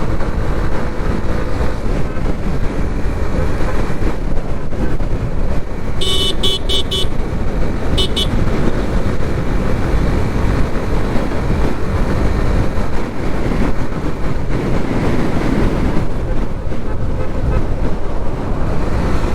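Steady wind and road noise of a motorcycle ride in highway traffic. A horn gives a quick string of short beeps about six seconds in and one more beep about two seconds later.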